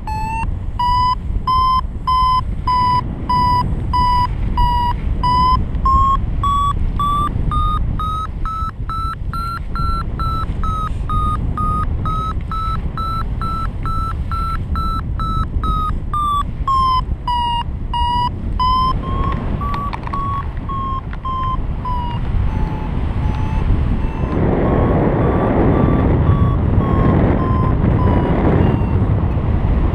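Paragliding variometer beeping in rapid pulses, its pitch climbing through the first half and dropping again later, the sign that the glider is climbing in lift and how strongly. Wind noise on the microphone runs underneath and grows louder near the end.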